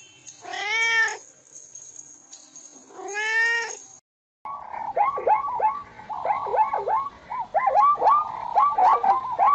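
Domestic cat meowing, two long drawn-out meows a couple of seconds apart. After a brief silence, a fast, busy run of short chirping calls follows and keeps going.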